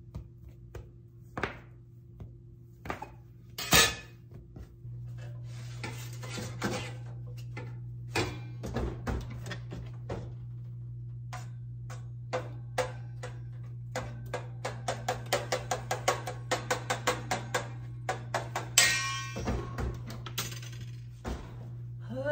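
Scattered knocks of a metal bench scraper and dough on a wooden butcher-block counter, then a steady low hum that comes in about five seconds in. Over the hum, a long run of clicks and clatter from metal oven racks and a metal pan, quickening to several clicks a second toward the end, with one loud clatter near the end.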